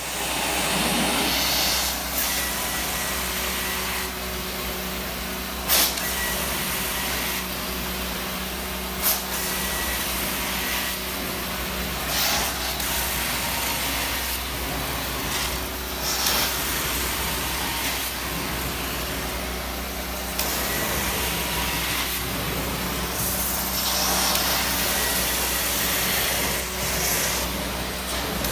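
Truck-mounted carpet extraction machine running, a steady suction roar with a low hum as the wand is worked over the carpet. Brief louder hissing surges come every few seconds.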